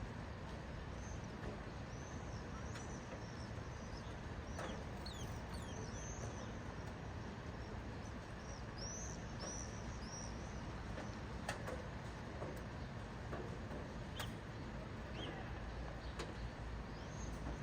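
Steady hiss of rain falling in a city, with small birds chirping in short bursts now and then and a few sharp ticks.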